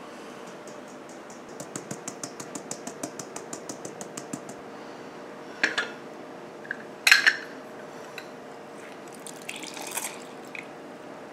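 Hand-cranked flour sifter clicking rhythmically, about six clicks a second, as powdered sugar is sifted. It stops after about four seconds. Then come a few sharp knocks as lemon halves are pressed in a hand-held citrus squeezer, with juice dripping into a glass measuring cup.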